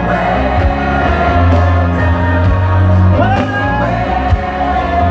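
Live gospel band music with a heavy bass line and long held notes over it.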